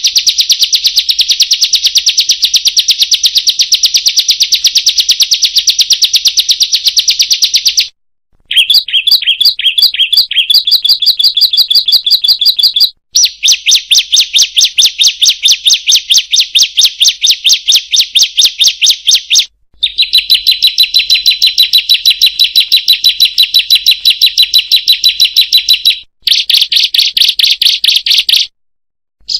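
Ciblek (bar-winged prinia) calling a rapid, even run of sharp 'kriek' notes, about ten a second, in long bouts of several seconds broken by brief pauses.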